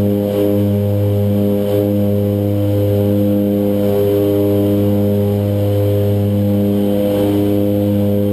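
Twin turboprop engines and propellers of an OV-10 Bronco droning steadily in flight, heard from inside the cockpit as a deep, even hum with a stack of steady tones.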